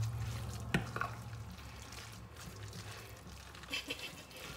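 Haddock patty mixture of fish, egg, coconut and breadcrumbs being stirred and folded in a bowl, with a few light clicks of the utensil against the bowl. A low hum fades about three seconds in.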